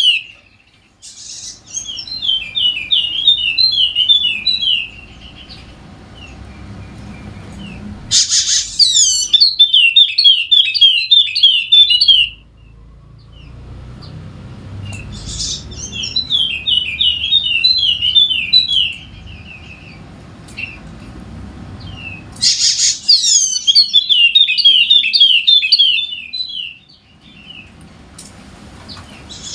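Yellow-spectacled white-eye (pleci wallacea) singing in full, vigorous song: fast, tightly packed twittering phrases in about four bursts of a few seconds each, with pauses between, over a low background rumble.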